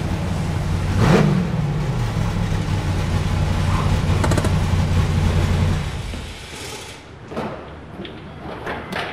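A Honda S2000 sports car's engine runs as the car rolls in, with a short rise in engine pitch about a second in. The engine note cuts off about six seconds in, followed by a few faint knocks.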